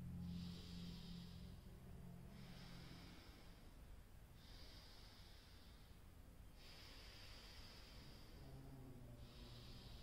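Faint breathing through the nose during alternate-nostril breathing (Anulom Vilom), one nostril closed by hand: a slow series of airy breaths, each about two seconds long.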